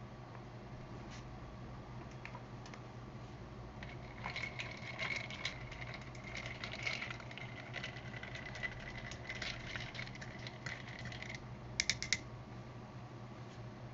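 A metal spoon stirring iced chocolate milk in a glass tumbler, clinking rapidly and ringing against the glass and ice cubes, with a few sharper clinks just before it stops.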